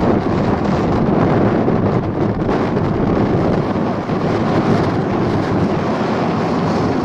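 Wind buffeting the camera's microphone: a loud, steady rush of noise, heaviest in the low end.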